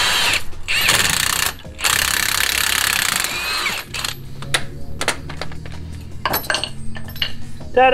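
Milwaukee M18 cordless impact wrench hammering a nut on a long bolt, used as a makeshift puller to drive a worn wheel hub out of its steering knuckle. It runs in three bursts over the first few seconds, the last one the longest, then gives way to scattered metallic clicks and knocks.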